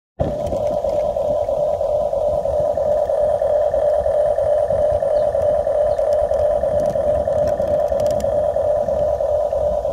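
Huina 1550 RC excavator running with a steady, even hum over a low rumble, starting suddenly just after the beginning.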